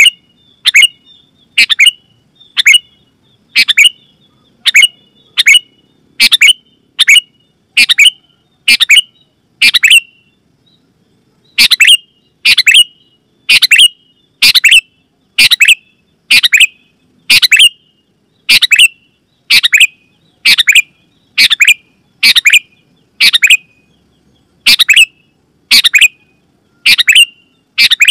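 Sooty-headed bulbul (kutilang) giving a loud, sharp call over and over, about one and a half calls a second, with one pause of about a second and a half around ten seconds in.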